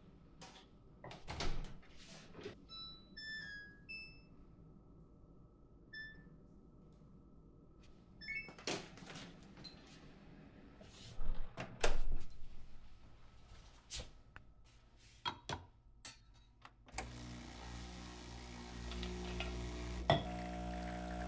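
Scattered plastic clicks and knocks of a computer keyboard being handled during cleaning, with a few louder knocks near the middle. About three-quarters of the way through a steady machine-like hum starts and keeps going.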